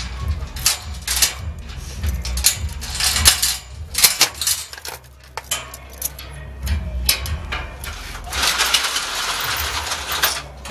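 A door's handle and latch being worked by hand: a run of sharp metallic clicks and rattles. A stretch of hiss comes about eight seconds in, with a low rumble underneath throughout.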